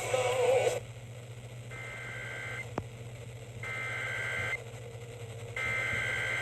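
Emergency Alert System SAME header over FM radio: three bursts of high, two-tone digital data screech, each about a second long with about a second's gap between them, coding the start of a flash flood warning. The end of a music jingle cuts off just before them.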